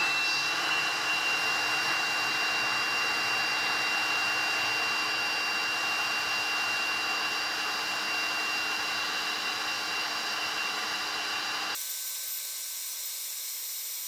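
Handheld electric air blower running steadily with a constant high whine, its nozzle pressed into the engine's coolant outlet to force old coolant out of the engine block. About twelve seconds in, the sound changes abruptly to a thinner hiss.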